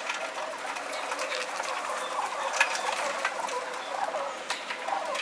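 Feral pigeons at close range, cooing and scuffling as they feed, with scattered sharp clicks, played back at double speed.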